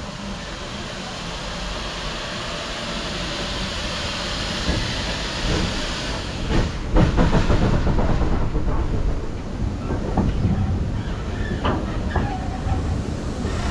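Steam locomotive 34027 Taw Valley, a Bulleid West Country class Pacific, starting its train: a hiss of escaping steam for the first six seconds or so, then irregular exhaust beats and clanks over a low rumble as the train gets moving.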